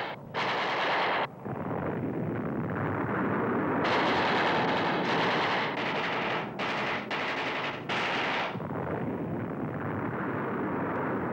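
Battle sounds: heavy gunfire and explosions in a dense, continuous din, broken by abrupt cuts between stretches. About eight seconds in it gives way to a duller rumble.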